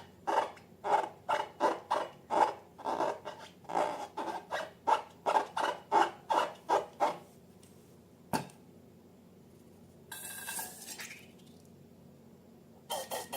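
Slime being mixed: a run of wet strokes at about three a second, stopping after about seven seconds. A single sharp click follows a little after eight seconds, then a short hiss about ten seconds in.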